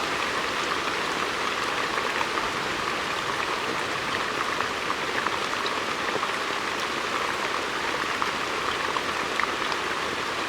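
Heavy rain falling steadily on forest leaves: a dense, even hiss of drops with many small individual drop ticks.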